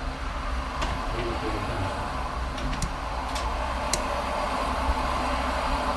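Steady rumble of motorway traffic in the background, with a few light, sharp clicks of small repair tools on the phone's parts as the taptic engine is taken out.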